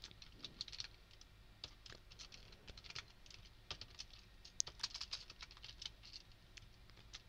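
Faint computer keyboard typing: irregular keystroke clicks in short runs.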